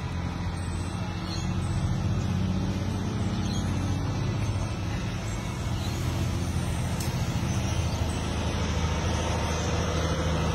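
Heavy truck's diesel engine idling: a steady, deep rumble that starts suddenly and holds even, a little fuller from about a second and a half in.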